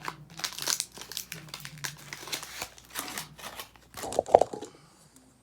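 Crinkling and tearing of a Pokémon booster pack's foil wrapper being opened by hand, a dense crackle with a louder rustle about four seconds in, after which it goes quiet.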